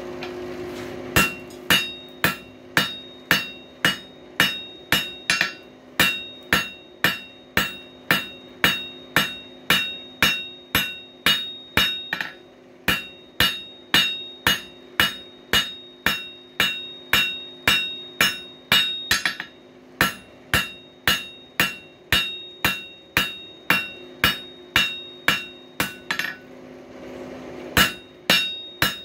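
Hand hammer forging hot coil spring steel on an anvil, drawing out the screwdriver bit: steady blows about two a second, each with a ringing note from the anvil, broken by two short pauses near the end. A steady low hum runs underneath.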